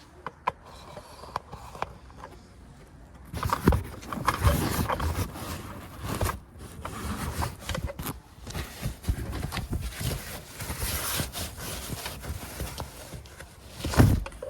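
A few faint clicks, then from about three seconds in irregular scraping and knocking.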